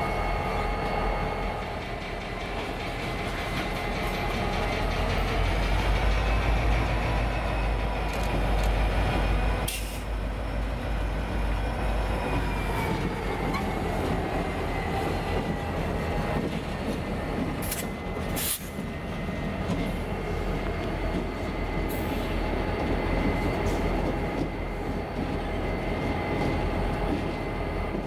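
A pair of EMD SD50-2 locomotives with 16-cylinder diesel engines rumbling as they roll slowly past, with a steady high-pitched whine over the engine sound. A few sharp metallic clanks come about ten and eighteen seconds in.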